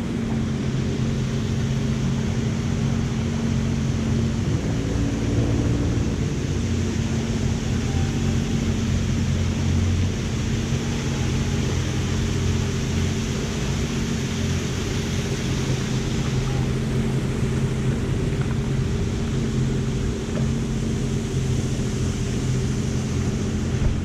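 Sea-Doo personal watercraft engine running steadily at low, idle-like speed, with water noise around the hull.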